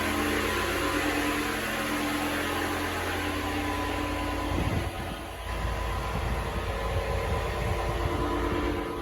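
Loud job-site machinery running steadily, an engine-like hum over a wash of noise. About four and a half seconds in, the steady tones stop and a lower, uneven rumble takes over.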